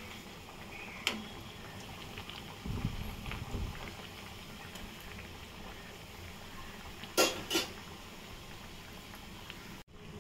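Corn cutlets deep-frying in hot oil, a steady bubbling sizzle. A utensil clicks and knocks against the pan as the cutlets are turned, loudest twice about seven seconds in.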